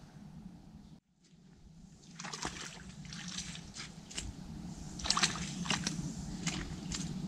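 Irregular splashing and sloshing in the shallow margin of a lake, starting about two seconds in after a short drop to silence and growing busier toward the end, as a hooked tench is brought to the landing net.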